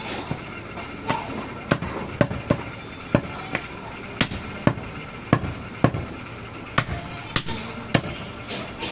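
Butcher's cleaver chopping through mutton, sharp chops roughly every half second at an uneven pace.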